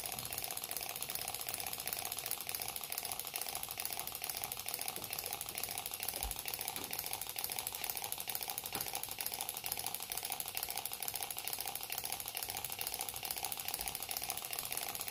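Six-cylinder rotary Gatling-style Stirling engine running slowly over a small alcohol flame. It gives a rapid, steady clatter of fine ticks as the metal ball bearings inside it roll and rattle.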